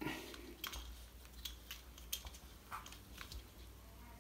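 Plastic tank valve being twisted by hand onto the Teflon-taped threaded fitting of a reverse osmosis storage tank: faint, scattered small clicks and scrapes, a little louder at the start.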